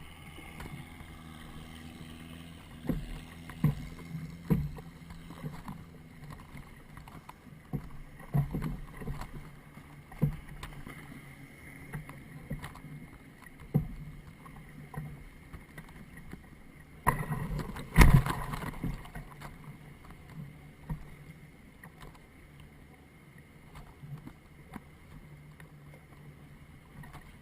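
Kayak paddling on the sea: irregular paddle splashes and hard knocks every few seconds, the loudest pair about seventeen to eighteen seconds in, over a faint steady hum.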